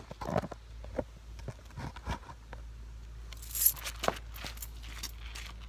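Scattered light clicks and clinks of things being handled, with a brief rustling hiss about three and a half seconds in, over a steady low hum.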